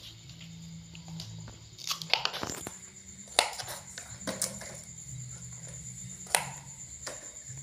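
Kitchen knife cutting crisp green vegetable stems on a plastic cutting board: a few sharp, irregular knocks of the blade on the board with a crunch of stems. The loudest strokes come about three and a half and six seconds in.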